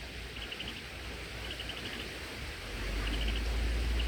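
A cricket chirping in short pulsed trills about once a second over steady outdoor hiss. About three seconds in, a low rumble grows louder.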